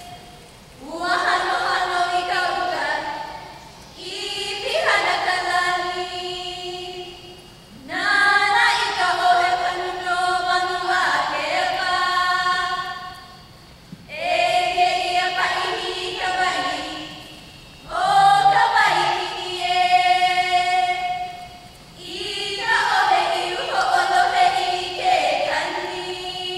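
A group of women chanting a Hawaiian oli in unison, unaccompanied, in phrases of about four seconds with long held tones and short pauses for breath between them.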